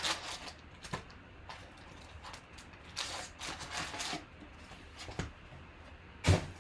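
Soft rustling and scraping of cards and packaging being handled on a table, with a sharp knock near the end.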